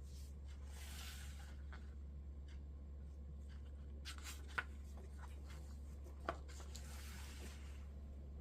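Packaging being handled: soft rubbing and rustling, with two sharp clicks, about four and a half and six seconds in, over a steady low hum.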